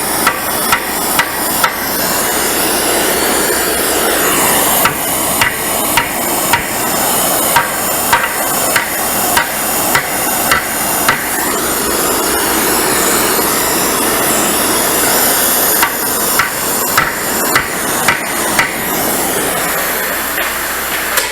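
Hammer blows on a hot mild-steel piece as it is beaten into shape, about two a second in three runs, over the steady roar of a heating torch.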